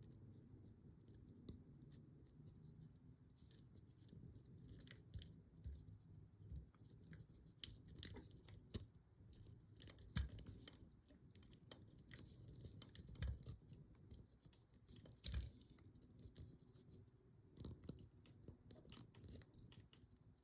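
Faint, scattered small clicks and scrapes of a padlock's lock core being handled and worked apart by hand, with a few sharper clicks now and then.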